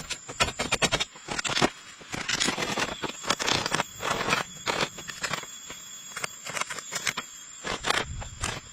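Irregular scraping and crackling: a dense run of short, uneven rustles and clicks, as of material being handled.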